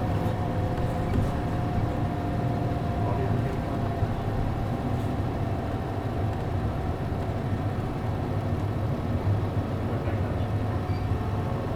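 City bus with an MD92TJ diesel engine running under way, heard inside the cabin: a steady engine drone with a faint whine that slowly drops in pitch.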